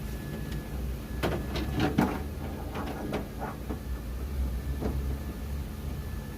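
Clicks and knocks of a door handle bracket being worked into place inside a Nissan Sentra's front door, a quick cluster of them from about one to four seconds in and one more near five seconds.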